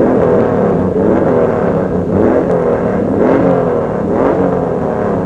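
Racing motorcycle engines revving, the pitch rising and falling repeatedly.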